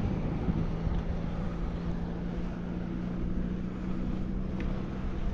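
Wind rushing on the microphone, with a steady low hum that sets in about half a second in.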